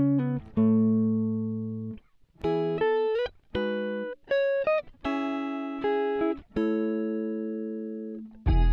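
Background music: plucked guitar notes and chords, each ringing and fading, with brief breaks between phrases. A fuller, deeper passage comes in near the end.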